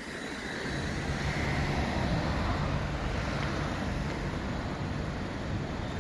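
Low rumble of a motor vehicle's engine amid road traffic, building over the first second and then steady.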